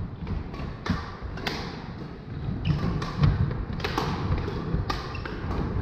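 Badminton rallies: sharp cracks of rackets hitting shuttlecocks, one or two a second, with footsteps thudding on a wooden sports-hall floor, echoing in the large hall.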